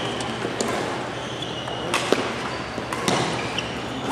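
Badminton rally: a few sharp cracks of rackets striking the shuttlecock, in pairs about a second apart past the middle, with short squeaks of shoes on the court floor.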